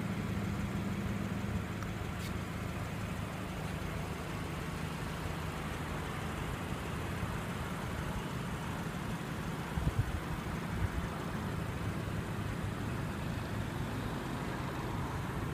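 Steady low rumble of motor vehicle noise, with a few faint knocks about two-thirds of the way through.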